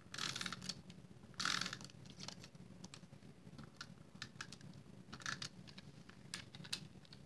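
A Snail adhesive tape runner pressed and drawn across cardstock: two short scratchy strokes near the start, then scattered small clicks and taps of the dispenser and paper being handled.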